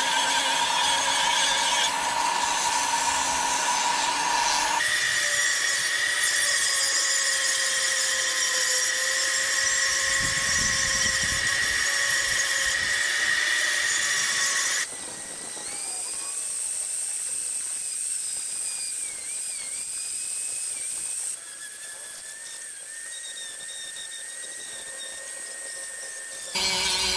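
Foredom flex-shaft rotary tool spinning a small sanding drum against a wooden fish carving: a steady high motor whine with the hiss of sanding. Its pitch jumps abruptly to a new steady level several times, and it is quieter in the second half.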